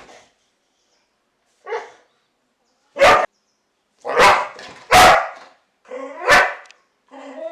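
Boxer dog barking: a couple of quiet barks, then four loud barks from about three seconds in, and a drawn-out pitched cry starting near the end.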